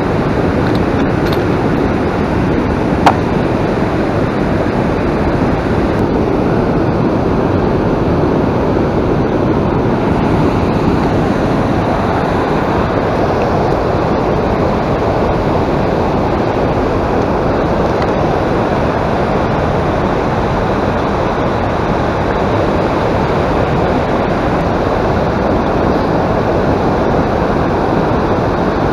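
Steady rushing rumble of wind on the microphone, with one sharp click about three seconds in.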